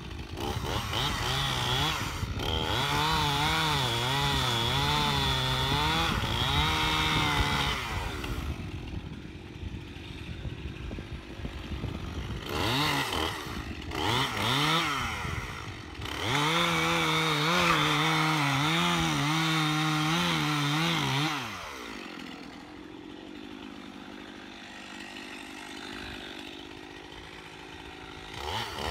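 Stihl chainsaw cutting through a felled oak limb: two long cuts at high revs, the engine pitch wavering as the chain bites into the wood. Between them the saw drops back to idle with a short rev, and it idles again after the second cut before revving up at the very end.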